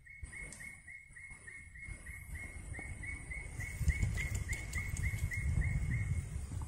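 A bird repeating a short chirp about four times a second, stopping about six seconds in, with a faint steady high whine above it. Underneath, a low rumbling noise grows steadily louder.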